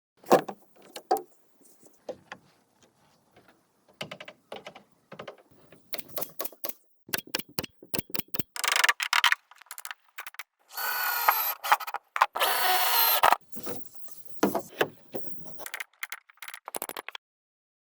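Hand work on bamboo: irregular clicks, knocks and clatter, with two rasping noises of about a second each a little past the middle.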